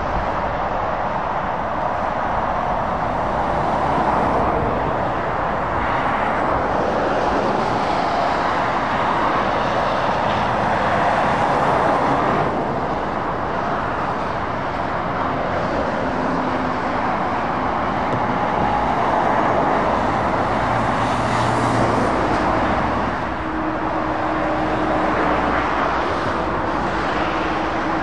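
Steady road traffic noise from heavy lorries and cars passing on a dual carriageway: a continuous rush of tyres on tarmac mixed with diesel truck engines, swelling and easing a little as vehicles go by.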